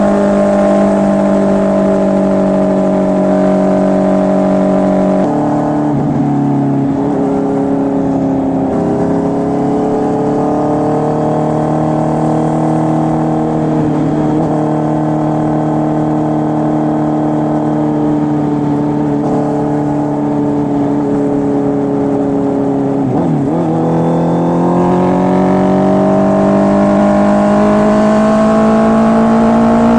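Honda CB650R inline-four engine running through an SC Project full exhaust system. There is a pitch change about five seconds in and another near 23 s, like gear changes, with the engine note holding fairly steady in between and rising as it accelerates near the end.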